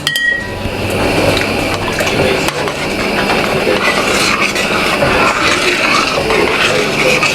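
Spoon stirring thick chili in a cooking pot: a steady, busy scraping with small clicks against the pot.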